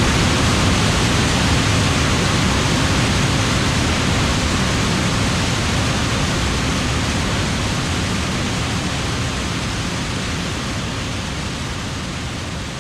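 John Deere S7 800 combine harvesting corn: a steady, dense rushing noise of the machine at work, with no clear engine note standing out, gradually getting quieter.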